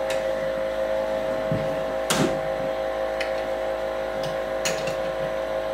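Steady electrical hum of laboratory equipment, with a few light clicks of plastic Petri dishes being set down on an incubator's wire shelves, the sharpest about two seconds in.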